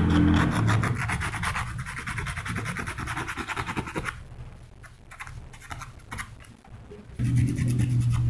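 Emery cloth rubbing rapidly back and forth over a small ferrule, scouring it clean; the strokes are fast and even for about four seconds, then quieter and scattered. A low steady hum comes in near the end.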